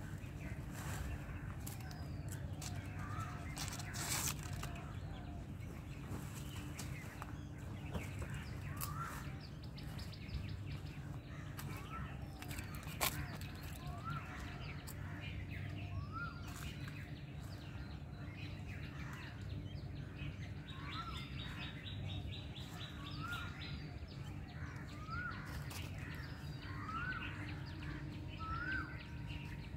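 Birds calling: one bird repeats a short rising note every second or so, starting about a third of the way in and creeping slightly higher, with other chirps and a brief fast trill later on. Under it runs a steady low hum, and a sharp click stands out about halfway through.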